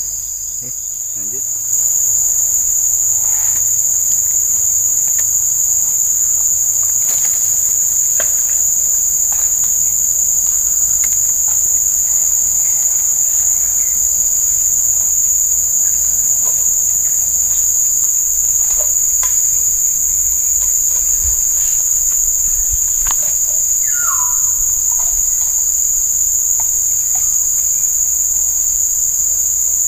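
Steady, high-pitched insect chorus from the surrounding forest, a continuous shrill drone, somewhat weaker for the first couple of seconds.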